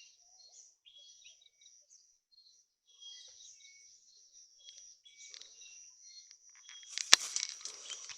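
Forest ambience: a steady high insect whine with scattered short bird chirps. About seven seconds in, a sharp click, with a second or so of rustling around it.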